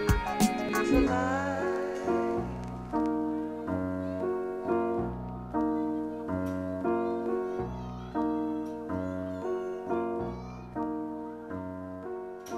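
Music with piano-like keyboard notes, each struck and fading, at about one to two notes a second. A few sharp cracks sound in the first second.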